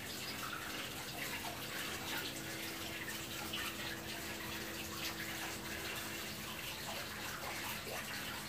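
Steady running-water noise with small trickling flecks, over a faint low hum; a second hum tone stops about six seconds in.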